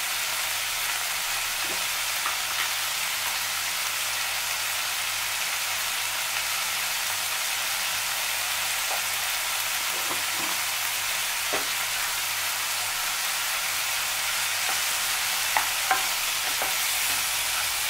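Chopped tomatoes and onions sizzling steadily in a non-stick frying pan, with a few light knocks of a wooden spatula stirring them, the last ones near the end.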